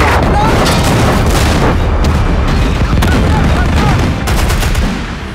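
Tank gun firing and its shell exploding in a battle sound mix: a sudden heavy boom at the start, then a deep rumble of blast and gunfire for about five seconds, easing off near the end.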